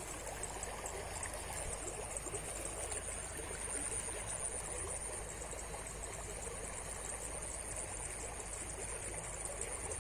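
River water running steadily, an even rushing with no breaks, with a thin steady high-pitched whine above it.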